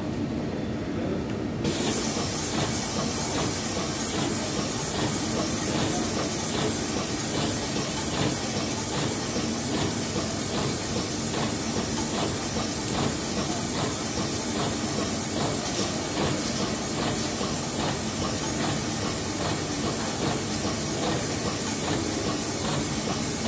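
Seho 1030 wave soldering machine running: a loud, steady hiss switches on suddenly a couple of seconds in and holds over a low, even hum.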